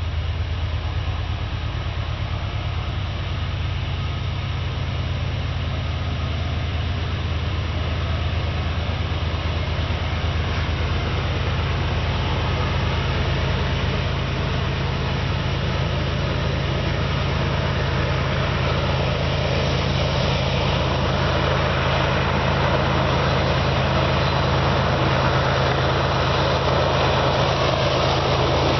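GE diesel locomotives (a CP ES44AC and an AC4400CW) working hard as they haul a loaded grain train upgrade, a steady low engine drone that slowly grows louder and brighter as the train approaches, nearest near the end.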